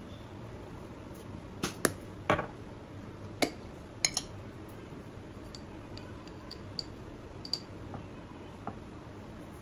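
Glass spice jars knocking and clinking against each other and the granite countertop as they are put down and picked up: a handful of sharp knocks in the first half, then lighter clicks and ticks as a jar is opened.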